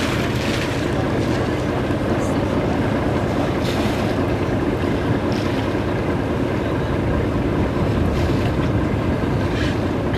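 Steady wind buffeting the camcorder microphone, with water washing past the hull of a sailing barge under way.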